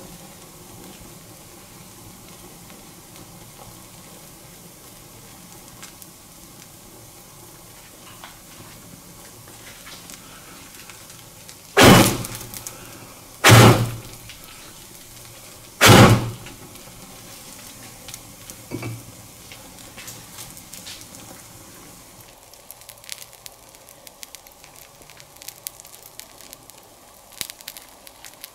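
Popcorn burning in a glass bowl around a red-hot metal ball: a steady low hiss and crackle of flames, broken about twelve seconds in by three loud sudden bangs within about four seconds. Later the fire dies to smouldering with sparse small crackles.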